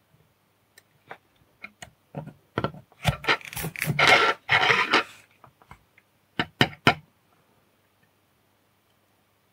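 A small circuit board being handled on a hard work surface: a few light taps and clicks, then about two seconds of scraping and rubbing as the board is slid and turned, then a few sharp clicks.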